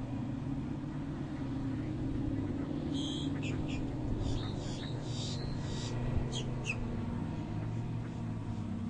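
Boat engine running with a steady low hum, with a few short high chirps or squeaks in the middle.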